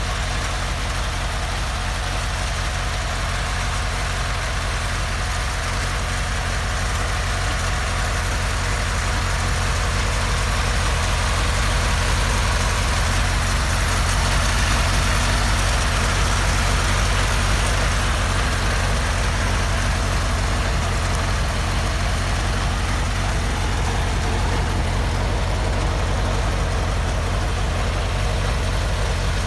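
Homemade helicopter's engine running steadily at idle, swelling a little louder for several seconds around the middle before settling back.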